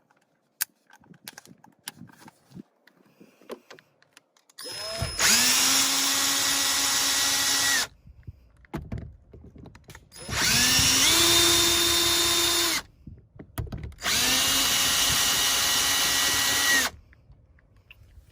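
Power drill driving a 10 mm socket in three runs of about three seconds each. Each winds up quickly to a steady whine as it backs off the mirror's mounting nuts. A few light clicks come before the first run.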